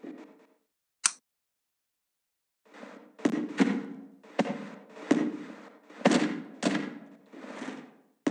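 A single sharp click, then from about three seconds in a run of eight bangs, roughly one or two a second, each fading quickly.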